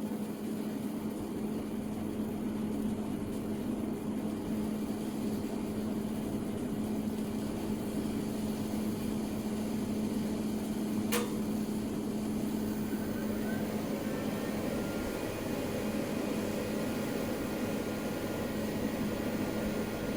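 Small soldering torch flame burning steadily with a rushing noise and a low hum, held on a silver jump ring to bring it up to soldering heat. A single sharp click about eleven seconds in.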